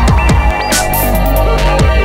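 Electronic dance music with a deep, steady bass, a punchy kick-drum beat and hissy cymbal hits over stepping synth lines.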